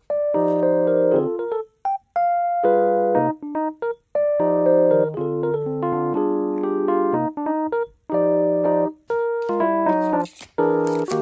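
Background music: electric piano chords played in short phrases, with brief silent breaks between them.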